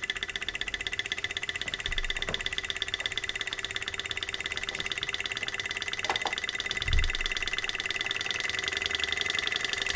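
Small alcohol-fired Stirling engine running just after starting, its pistons and flywheel making a fast, even mechanical clatter with a steady whine as it spins a small DC motor used as a generator. A short low thump about seven seconds in.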